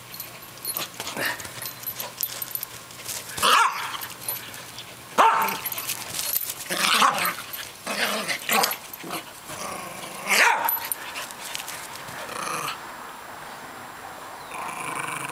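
A dog growling, with short sharp barks breaking out every second or two; it goes quieter in the last few seconds.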